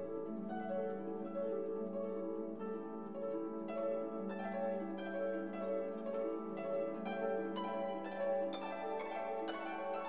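Instrumental background music: plucked string notes over a held low tone.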